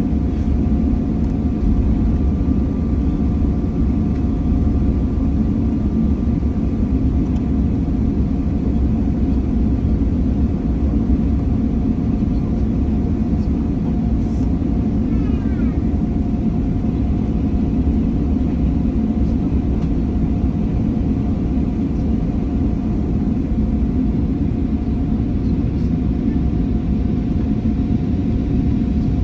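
Jet airliner's engines running at taxi power, heard inside the passenger cabin: a steady low rumble with a constant whine on top.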